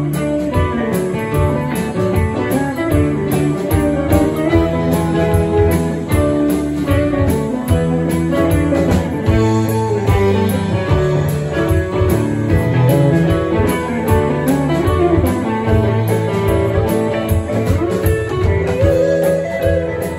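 Live rock band playing an instrumental passage: electric guitars lead over electric bass, a drum kit and keyboard.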